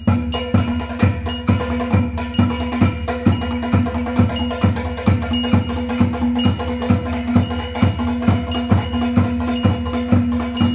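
Rhythmic temple ritual percussion, about three strokes a second, each stroke with a bright metallic ring, over a steady held tone.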